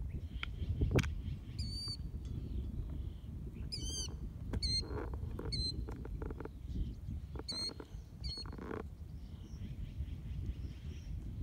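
A bird gives several short, high, wavy calls a second or two apart, over a steady low rumble of wind on the microphone.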